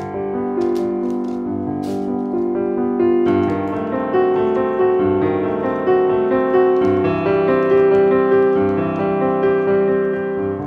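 Background piano music, a steady run of held notes.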